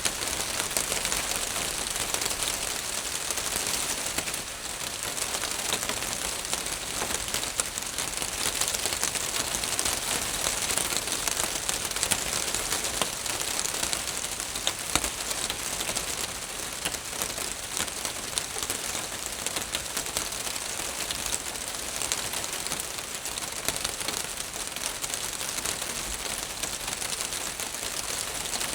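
Rain falling steadily on a roof: a dense, even hiss of many small drop impacts.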